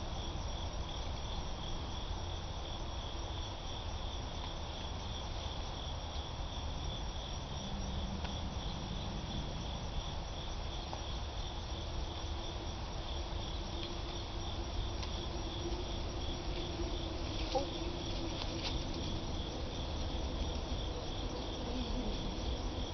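Insects chirring steadily: one high, rapidly pulsing trill that keeps going without a break, over a low steady rumble.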